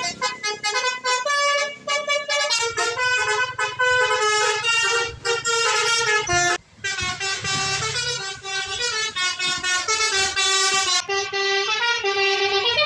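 Basuri multi-tone telolet bus horn playing a tune in quick stepped notes, breaking off briefly about six and a half seconds in. A low engine rumble runs underneath from a couple of seconds in.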